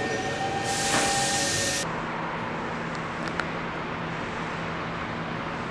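Compressed air hissing from a stopped Hankyu electric train's pneumatic system, cutting off sharply about two seconds in, followed by the train's steady low hum.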